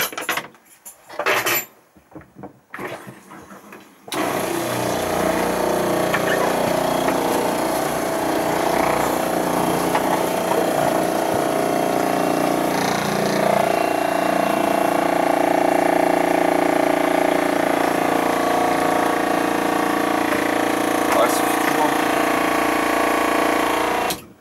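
Newly installed electric water pump running steadily while water is drawn from the tap, a steady hum with a little noise to it. It starts suddenly about four seconds in, shifts pitch about halfway through, and cuts off just before the end.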